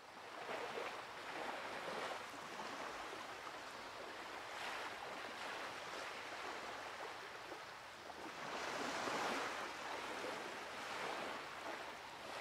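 Small sea waves washing against a rocky shore, fading in and then rising and falling in slow swells.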